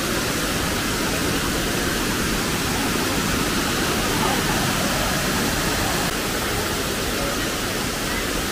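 Steady rushing roar of a waterfall's falling water.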